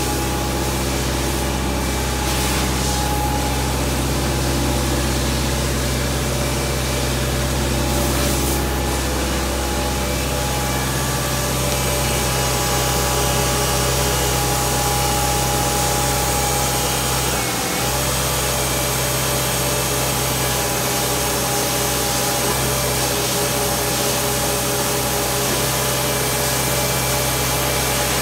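Gehl 1648 asphalt paver's diesel engine running steadily, with a brief dip about two-thirds of the way through.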